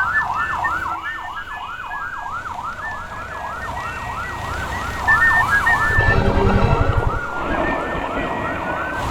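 Emergency-vehicle siren in a fast yelp, rising sweeps repeating about three or four times a second, fading out after about six seconds. A low rumble grows louder about five seconds in.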